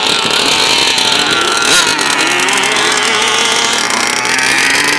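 Small two-stroke engines of gas-powered RC cars running, their pitch rising and falling as the throttle is worked.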